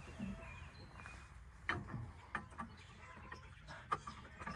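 Faint clucking of chickens, with several light clicks and taps of hand tools and parts being handled.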